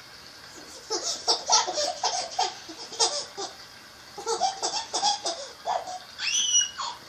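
A baby laughing in two runs of quick, choppy giggles with a short pause between them, ending in a high-pitched squeal.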